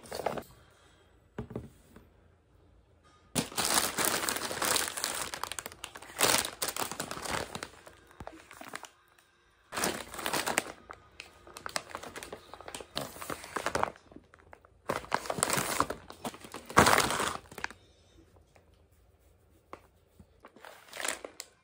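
Plastic packaging bags crinkling and rustling in several bursts as grocery items are handled and unpacked, loudest about three-quarters of the way through.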